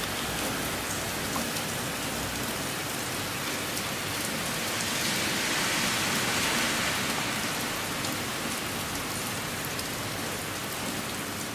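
Heavy typhoon rain pouring steadily, getting louder for a couple of seconds about halfway through.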